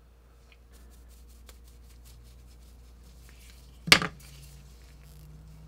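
Gloved hands handling a gold-leafed metal part on a workbench: light clicks and rustles, then one sharp knock of hard objects a little under four seconds in, over a low steady hum.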